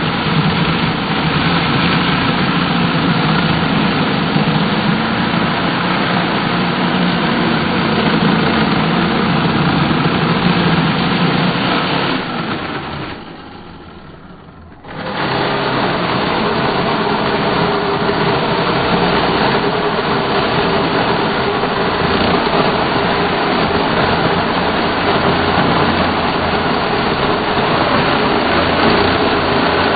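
A 372XP-class gas chainsaw running and cutting wood, its pitch changing with the load. About halfway through it falls away for a couple of seconds, then comes back suddenly at full level.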